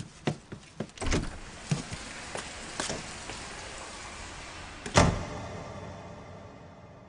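A string of light clicks and knocks, then one loud thump about five seconds in that dies away slowly.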